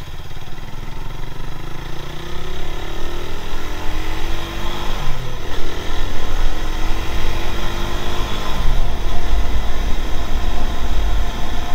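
Motorcycle engine accelerating through the gears: its pitch climbs, drops at a gear change about five seconds in, climbs again and drops at another change near nine seconds. Wind rumbles on the microphone, heavier near the end.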